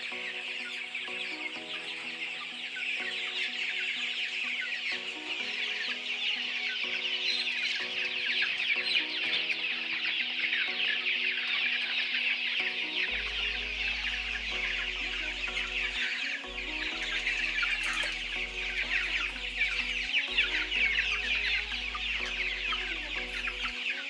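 A large flock of broiler chickens clucking and peeping without a break, in a dense chorus of many overlapping calls. Background music plays along, with a deep bass line coming in about halfway.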